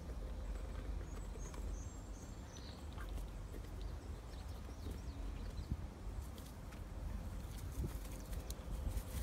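A white domestic duck quacking quietly, over a steady low rumble.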